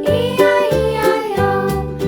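Upbeat children's song with a bouncing bass line and a steady beat, a melody line over it.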